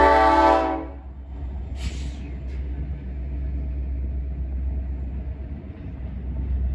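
Freight locomotive air horn ending a series of blasts with one longer blast that stops about a second in, followed by the low steady rumble of the train and a short burst of hissing air about two seconds in.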